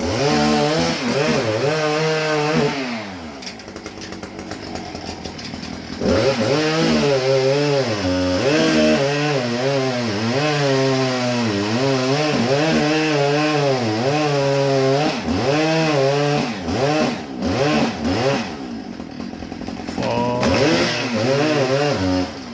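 Chainsaw engine running at high revs and cutting into wood, its pitch sagging and recovering again and again as the chain bites. About three seconds in it drops to quieter running, revs back up about six seconds in, and eases off and picks up a few times near the end.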